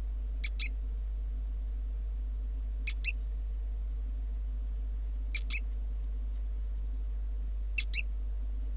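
Gecko calling: a short, sharp double chirp repeated four times, about every two and a half seconds, over a steady low electrical hum.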